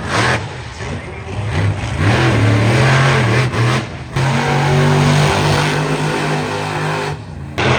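Race car engine running, its pitch rising and falling and then holding steady, with two brief abrupt breaks.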